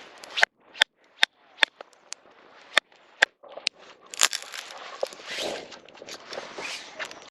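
Firewood crackling and popping in a campfire: sharp, irregular snaps, a few a second, with a soft hiss between them.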